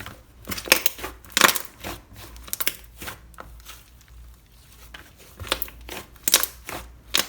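Crunchy, crackling crushing sounds in irregular bursts as a mango-cherry 'sherbet' is pressed and worked, loudest about one and a half seconds in and again near the end.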